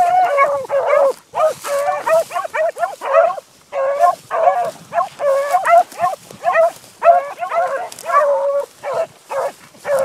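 Several dogs barking in a fast, overlapping run of short calls: hunting dogs giving voice as they chase a rabbit through brush.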